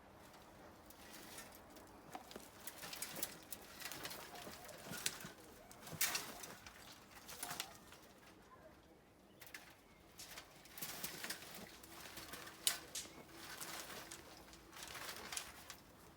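Hand tools scraping and knocking irregularly in soil and rubble, with a bird cooing faintly in the background.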